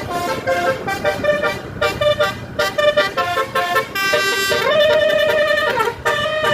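Bus telolet horn, a Basuri-type multi-trumpet air horn, playing a quick tune of short notes, then a long held note that slides up in pitch about four and a half seconds in and slides back down about a second later.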